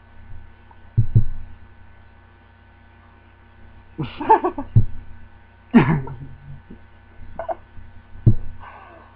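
Steady electrical hum with a low rumble, broken by a few dull thumps: two about a second in, one near the middle and one near the end. Short wordless vocal sounds come around the middle.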